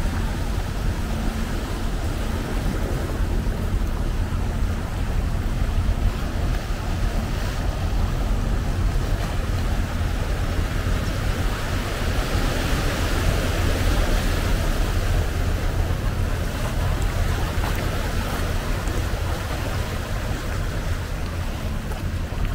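Small sea waves washing over the rocks at the foot of a seawall, with steady wind rumbling on the microphone. The wash grows a little louder about halfway through.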